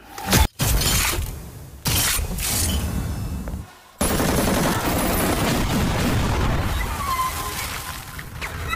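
Action-film sound effects over music: a few sharp hits in the first two seconds, then a sudden blast about four seconds in, followed by a long, dense rumble of explosion and crashing debris.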